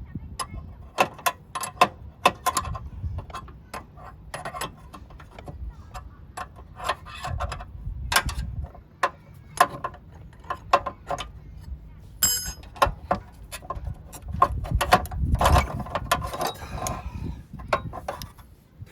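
Irregular clicks and knocks of hand tools and metal parts being handled, with one ringing metal clink about twelve seconds in.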